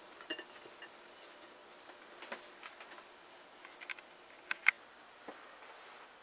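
Quiet room with a few faint, scattered light clicks and taps of handling noise, with a sharper double click about three-quarters of the way through.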